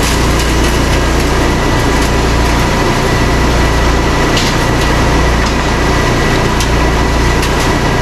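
A Wood-Mizer band sawmill and a Baker edger running at the same time, a loud, steady machinery drone, with white oak being sawn and edged.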